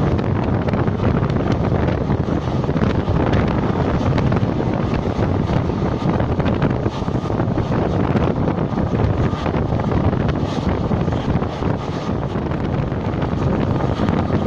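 Steady rumble of a passenger train running along the line, heard from on board, with wind buffeting the microphone.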